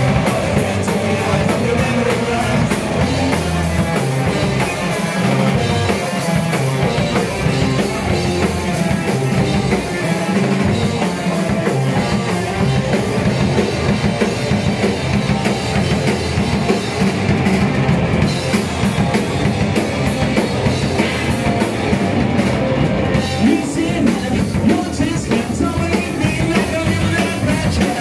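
A live rock band plays loud and unbroken: drum kit, distorted electric guitars and bass, with a singer on the microphone.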